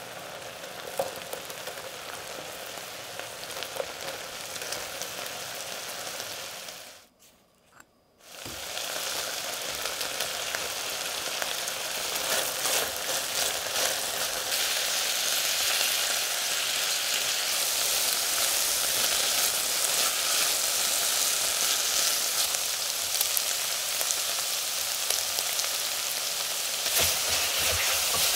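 Beef pieces bubbling and sizzling in their own juices in a pot. After a brief break about seven seconds in, carrot and red bell pepper strips are stir-fried with the beef, giving a steadier, louder sizzle with a spatula stirring through it.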